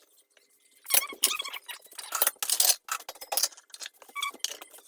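Dishes and utensils clinking and clattering during dishwashing: a quick irregular run of light knocks and clinks.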